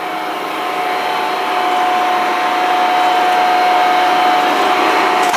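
Coolant pump on a Dainichi heavy-duty engine lathe running, showing that it works: a steady whir with one high whine over a rushing noise, stopping suddenly near the end.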